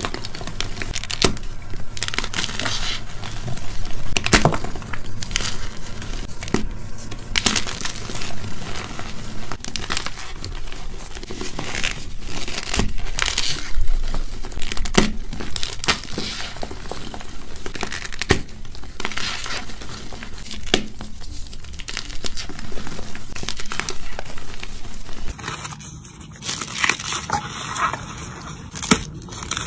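Blocks of gym chalk coated in cornstarch being crumbled and crushed by hand into a bowl of powder: a dense, irregular run of crisp crunches and crackles. The sound changes about 25 seconds in, where a new clip of the same crumbling begins.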